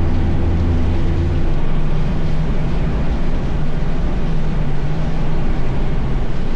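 Loud, steady rushing noise of strong tornado wind, with a low engine-like hum underneath that drops away and shifts higher about a second and a half in.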